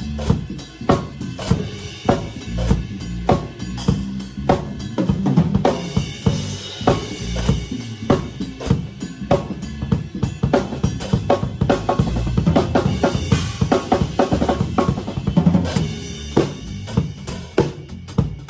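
Tama drum kit with Meinl cymbals played as a groove: kick drum, snare with rimshots, hi-hat and cymbal crashes in a steady stream of strokes.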